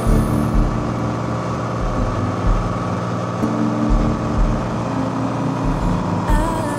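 Cessna T182T's turbocharged six-cylinder engine and propeller droning steadily, with an uneven low rumble underneath.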